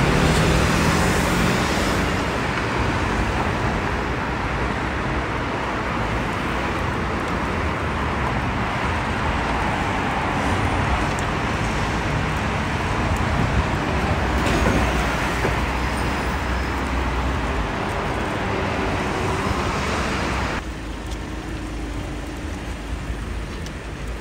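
City street traffic: cars and buses driving past, a steady rush of tyres and engines. It drops suddenly to a quieter level near the end.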